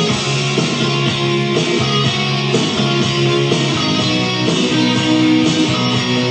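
Guitar-led rock music playing at a steady, even loudness, its chords changing about once a second.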